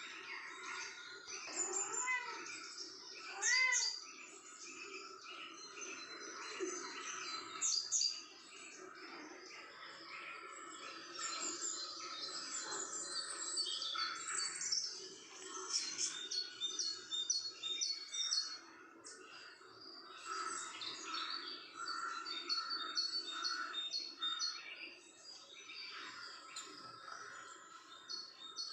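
Many small birds chirping and twittering, their quick high calls overlapping throughout, with two louder, rising-then-falling calls a few seconds in.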